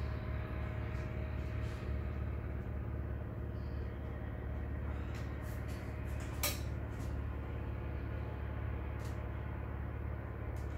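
Steady low background rumble, with one sharp click about six and a half seconds in.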